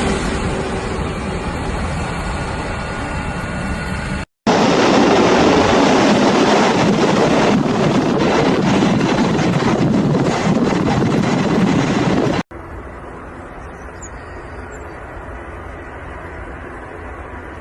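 Aircraft landing noise: a loud, steady rush and rumble. It breaks off suddenly just over four seconds in, comes back louder after a moment's silence, then drops at a hard cut around twelve seconds to a quieter steady rumble.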